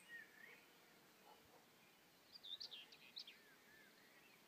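Wild birds singing faintly: a few soft warbling notes at the start, then a quick run of higher chirps about two and a half seconds in, the loudest part.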